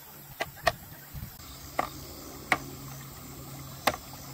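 Meat cleaver chopping down onto a plastic cutting board: five sharp knocks at uneven intervals, two close together near the start and the rest spaced about a second apart.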